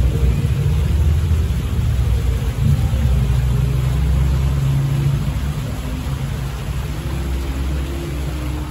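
Street traffic: a vehicle's engine rumbling low and steady, easing off after about five seconds.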